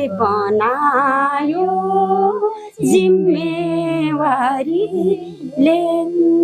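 A woman sings a slow, mournful Nepali song line solo, with long held notes and vibrato, and a quick breath about three seconds in.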